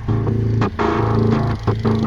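Background music with bass and guitar notes.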